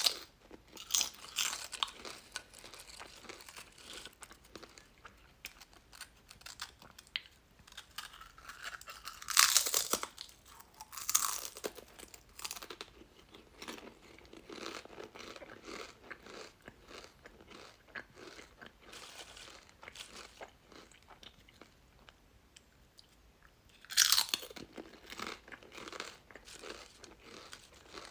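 A person biting into and chewing crunchy chips close up. There are three loud bites, at the start, about nine seconds in and about 24 seconds in, each followed by a run of smaller chewing crunches.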